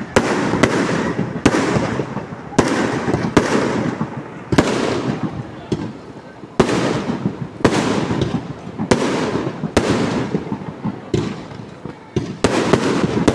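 Fireworks exploding overhead in quick succession: about a dozen loud bangs, roughly one a second, each trailing off after the blast.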